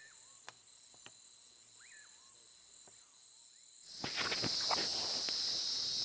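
Forest insects chirring steadily at a few high pitches, with a short rising-and-falling call repeating about every two seconds and a few faint clicks. About four seconds in, a much louder and denser insect chorus takes over, with scattered clicks.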